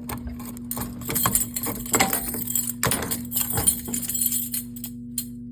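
A ring of keys jangling and clinking with sharp metallic clicks while a fire alarm pull station reset key is handled. The jangling starts about a second in and dies away shortly before the end, over a steady low hum.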